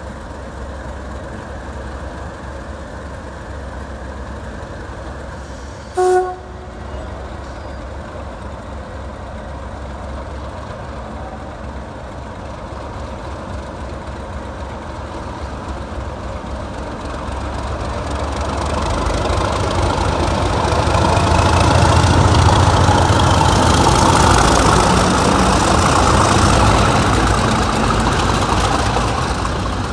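Pair of BR green English Electric Class 37 diesel locomotives: a short horn toot about six seconds in, then their engines growing steadily louder as they pass close by, loudest from about twenty seconds in and easing a little near the end.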